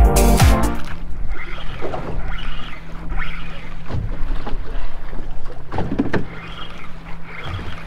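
Small water waves slapping against a small open skiff's hull with soft dull knocks every couple of seconds, over a steady low hum and some wind on the microphone.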